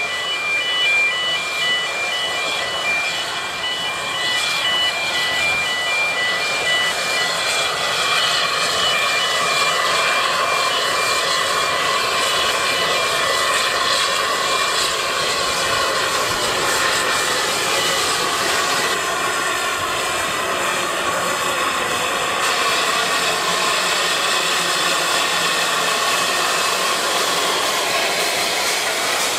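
Narrow-gauge steam locomotive and its carriages running slowly along street track, heard over steady road-traffic noise, with an intermittent electronic beeping through the first several seconds. Steam hisses from the engine as it draws alongside near the end.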